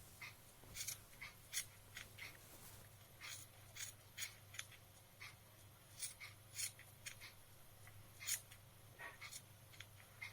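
Scissors snipping woolen yarn as it is trimmed level: faint, short snips at an uneven pace, about two a second.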